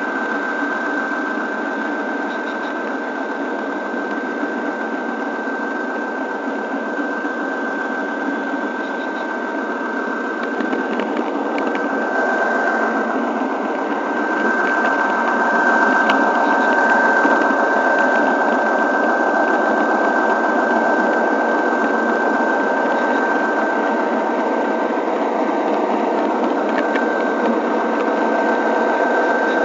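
Model train running along the layout track, heard from a camera riding in the train: a steady mechanical whir and rolling rumble of small wheels on the rails, with a thin steady whine over it. It gets a little louder about halfway through.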